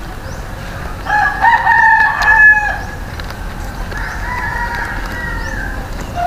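Roosters crowing: a loud crow about a second in and a fainter one about four seconds in.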